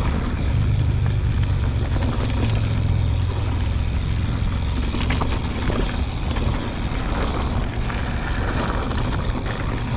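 Mountain bike rolling down rocky dirt singletrack: wind buffeting the action-camera microphone as a steady low rumble, over tyre noise on loose dirt and rock with a few clicks and rattles from the bike. The rumble is heaviest in the first half and eases a little after about five seconds.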